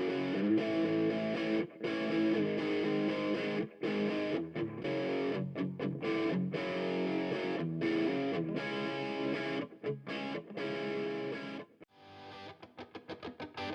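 Music led by a distorted electric guitar. Near the end it drops out for a moment, then comes back as a fast chopped rhythm.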